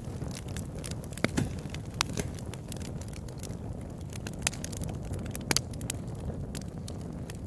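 Campfire burning: a steady low rumble of flames with scattered sharp crackles and pops, a few of them louder, at about a second in, two seconds in and around four and a half to five and a half seconds.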